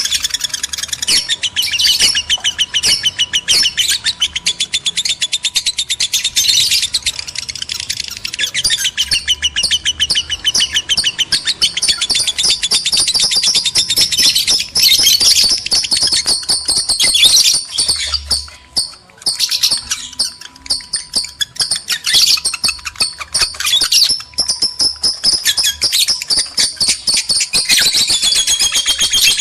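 Lovebirds, male and female in breeding condition, chattering in a fast, unbroken stream of high-pitched chirps and shrieks, with a short lull about two-thirds of the way through.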